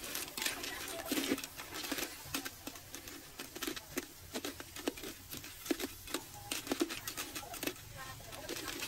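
Irregular light clicks and taps with some rustling, several a second and unevenly spaced.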